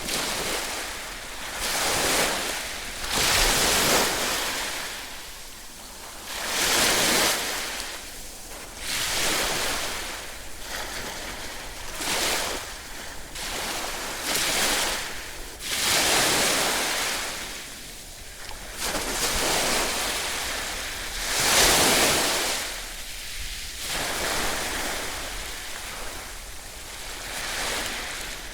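Ocean waves breaking on a shore, one after another, each surge of surf rising and washing back every few seconds.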